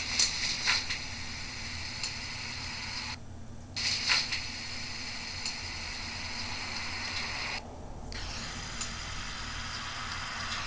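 Steady background hiss with a low electrical hum and no distinct event, the room tone of a quiet recording. The hiss cuts out briefly twice, about three seconds in and again near eight seconds.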